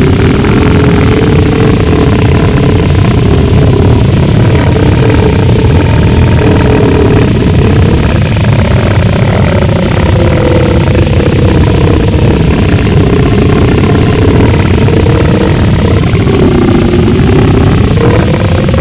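Gorenoise: a constant, very loud wall of distorted rumbling noise, heaviest in the low end, with slowly wavering tones drifting over it.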